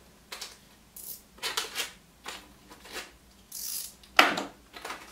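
Knife cutting open a small cardboard box: a string of irregular short scraping and clicking strokes, the loudest a sharp one about four seconds in.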